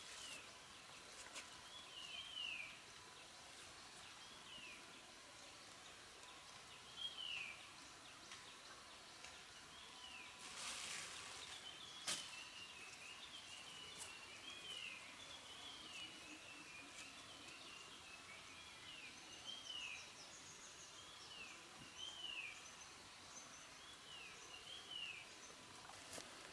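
Faint bird calls: short, falling whistled notes repeated every second or two, often in pairs, with a spell of busier chattering in the middle. A brief rustle and a single sharp click come about halfway through.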